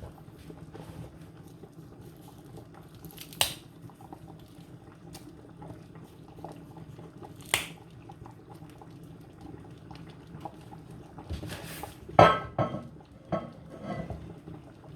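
Pot of soup simmering on the stove with a low steady bubbling, and kitchenware clinking against the pot: two single sharp clinks, then a burst of knocks and clatter near the end.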